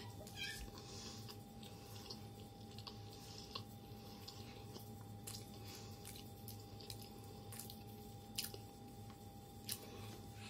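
Faint, wet chewing and mouth sounds of someone eating mashed potatoes with meat and bread, with scattered small clicks throughout.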